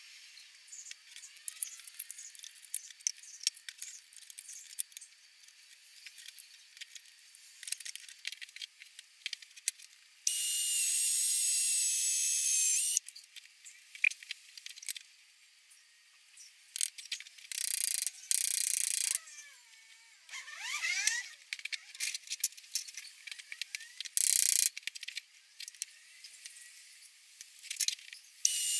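Bursts of a cordless drill motor whining, the longest nearly three seconds, between stretches of scattered clicks and rattles from clamps being handled and set on a glued wood stack. The sound is thin, with no low end.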